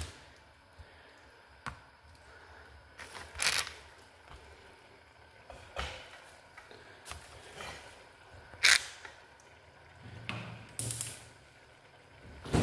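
Scattered kitchen handling sounds at a gas hob: a few sharp clicks and short scraping or rustling bursts with quiet gaps between them. The loudest is a sharp click a little past the middle.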